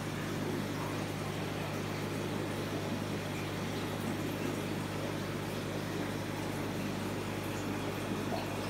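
Steady hum of an aquarium air pump with water bubbling from the airlines that drive the fry hatchery boxes, constant throughout.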